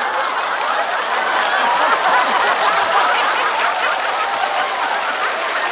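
Studio audience laughing and applauding together after a punchline, a dense, steady wash of clapping and many voices laughing.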